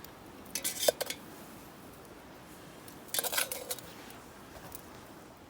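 A metal utensil scraping in a cooking pan, in two short rasping bursts with a sharp click after the first.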